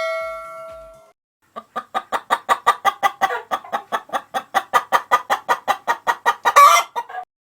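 A chime rings and dies away over the first second. Then a hen clucks in a fast, even series, about five or six clucks a second, and ends in a louder, harsher squawk near the end, like a hen's cackle.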